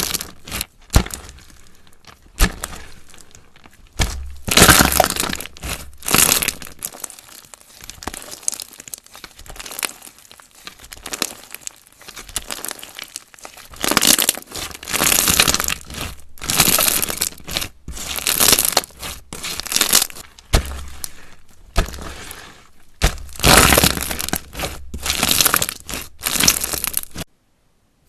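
Slime being squished and folded by hand, crackling and popping in irregular bursts. It cuts off suddenly just before the end.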